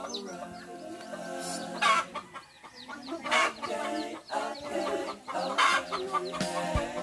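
Chickens clucking over background music with a steady run of sustained notes.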